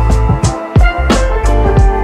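Background music with a steady beat: drums and bass.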